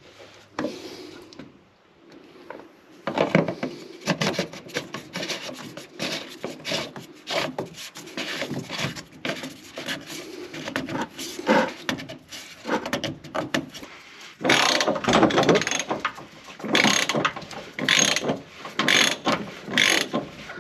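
Fuel filter canister on a Duramax diesel truck being screwed back into its housing, a dense run of clicking and rubbing as it is turned. It starts about three seconds in, and in the last six seconds the clicking comes in louder, separate bursts.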